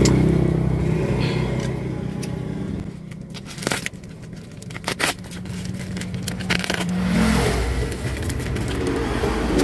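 A plastic bubble-mailer being torn open by hand: crinkling, rustling and tearing of the plastic, with a few sharp crackles about three to five seconds in, over a low rumble from the package being handled close to the microphone.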